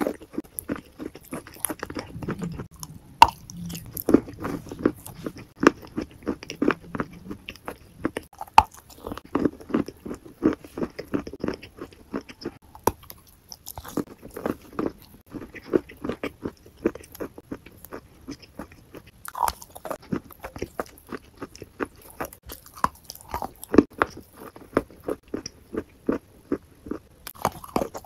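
Close-miked eating: a person biting and chewing, a dense run of sharp crunchy clicks and crackles with short pauses between mouthfuls.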